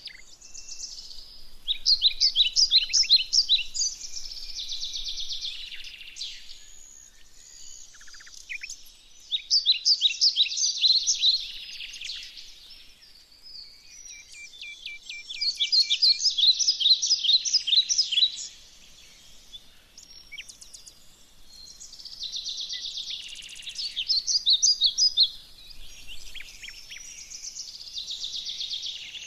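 An animal's high, rapid chattering calls in bursts of a few seconds each, repeated about five times with quieter gaps between.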